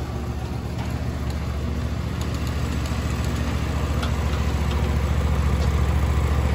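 An engine idling steadily, its even pulsing note growing gradually louder.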